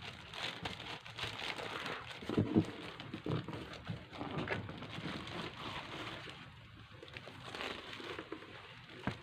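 Irregular rustling and crinkling of packaging being handled, with a few light knocks, the strongest a couple of seconds in.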